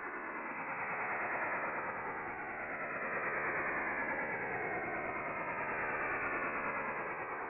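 French Navy STANAG 4285 HF data signal on 8646 kHz, heard through a shortwave receiver as a steady hiss-like rush of phase-shift-keyed modem data, with slow fading drifting through it. It is carrying a test transmission that is being decoded.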